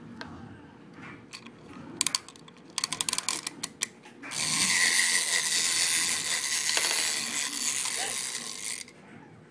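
Plastic toy chicken's mechanism: a couple of clicks, then a quick run of ratcheting clicks, then about four and a half seconds of loud, steady mechanical whirring that stops abruptly near the end.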